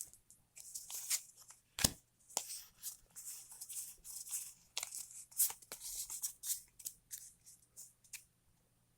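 Foil booster-pack wrapper being worked open by hand: a run of short crinkles and crackles that stops near the end.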